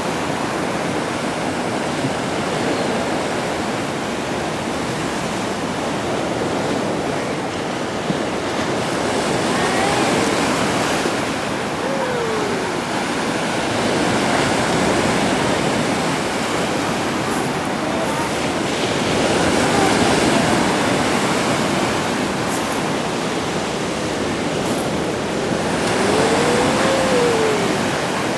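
Black Sea surf washing onto the shore in a steady rush, swelling louder as waves break about a third of the way in, around two-thirds through, and again near the end.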